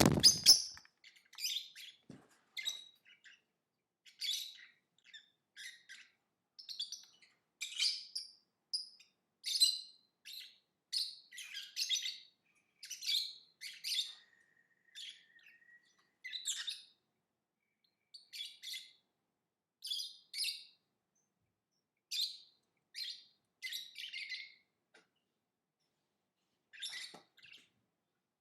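Lovebird chirping in quick bursts of short, high chirps with brief pauses, and one held, whistle-like note about halfway through. A short low thump comes right at the start.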